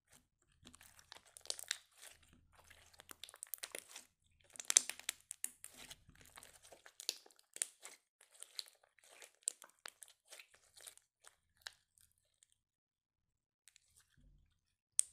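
Glossy blue slime pressed, squeezed and stretched by hand against a glass plate: a quick, uneven run of sticky crackles and clicks. It thins out after about twelve seconds, with one sharp click near the end.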